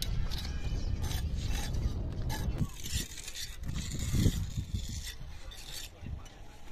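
Hand trowels scraping and rubbing cement mortar onto a concrete bridge parapet wall, in irregular short strokes. A low rumble underneath drops away about two and a half seconds in.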